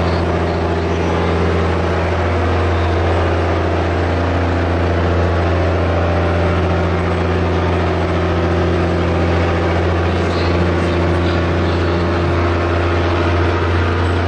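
Engine of a tracked armoured vehicle running at a steady, unchanging note while it tows a tractor-pulling sledge.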